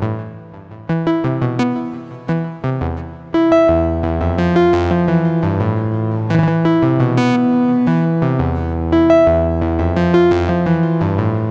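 Ensoniq EPS Classic sampler playing the saw-style waveform B02, a nasal mid-range bass sound, as a monophonic sequenced line triggered by an Elektron Octatrack. Aftertouch opens the filter on some notes, and glide moves between pitches. The first three seconds are short notes that die away; after that the notes are held and run into one another.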